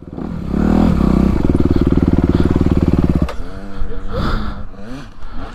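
A dirt bike engine revs up and is held at steady high revs, then cuts off abruptly about three seconds in. Quieter, uneven engine sounds from other bikes follow.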